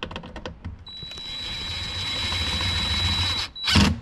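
Cordless power screwdriver driving in the door speaker's mounting screws: a few clicks, then the motor running steadily with a high whine for about two and a half seconds, growing slightly louder, and a short loud clack near the end.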